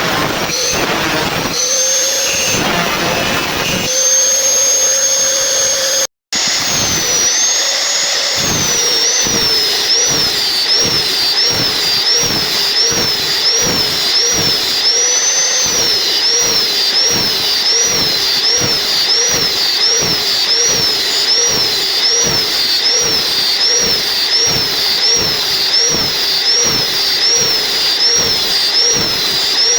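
Large log-sawing blade running with a loud, high-pitched whine. From about nine seconds in, its pitch dips and recovers regularly, about one and a half times a second. The sound breaks off for a moment about six seconds in.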